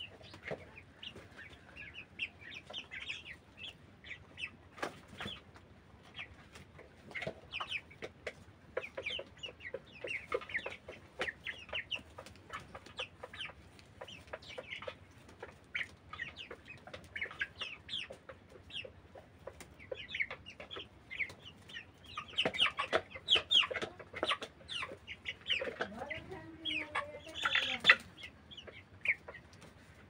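A flock of white broiler chickens clucking and peeping in many short calls, busier in the last third, with one longer, louder call near the end.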